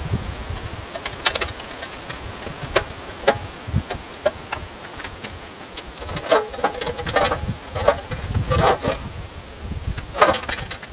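Scattered clinks, knocks and scrapes of a rusty steel steam-cleaner drum being shifted and turned by hand on a steel platform. The knocks bunch together about halfway through and again near the end.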